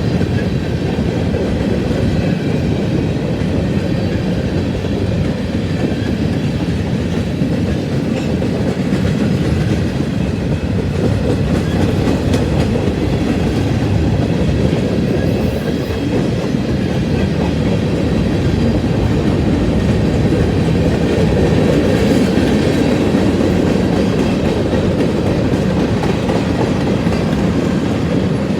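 Cars of a BNSF manifest freight train rolling past, a steady, continuous rumble of steel wheels on rail.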